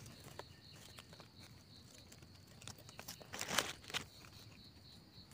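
Faint rustling and a few soft clicks of hands handling freshly picked mushrooms among dry leaf litter, with one brief louder rustle a little past the middle. An insect's steady pulsing trill runs underneath.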